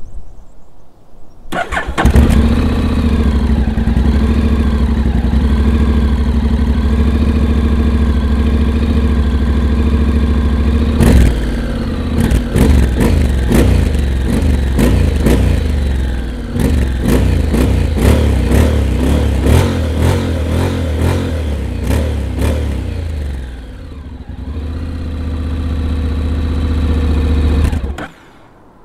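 Honda Forza 750 scooter's 745 cc parallel-twin engine starts about a second and a half in and idles steadily. Then it is revved in a long series of throttle blips, its pitch rising and falling. It settles back to idle and is switched off abruptly near the end.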